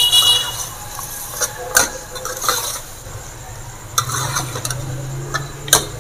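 Metal ladle stirring mutton pieces in a metal pot, scraping and now and then knocking sharply against the sides. The meat sizzles in ghee as the last water cooks off and the ghee separates.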